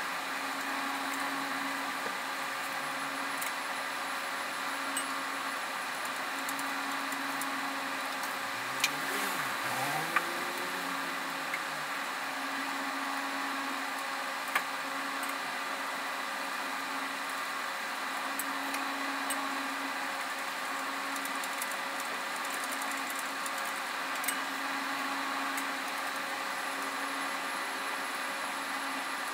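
Steady machine hum of a workshop, with a handful of sharp metallic clinks of hand tools on bolts while an engine is refitted.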